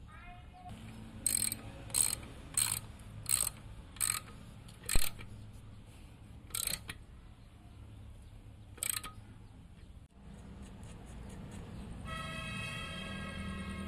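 Ratchet wrench clicking in short bursts as it tightens a cover bolt on the restored D8 diesel engine: six quick strokes in a row, then two more spaced further apart. Background music comes in near the end.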